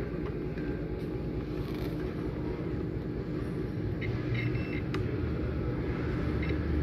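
Steady low background rumble and hum, growing louder near the end, with a faint click about five seconds in.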